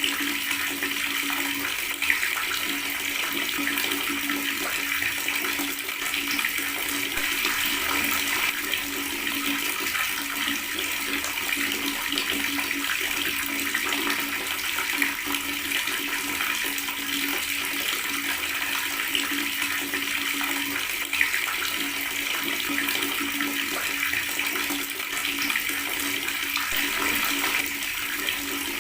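Water running steadily from a tap, gurgling as it flows, with a faint steady low hum beneath and a couple of brief louder splashes.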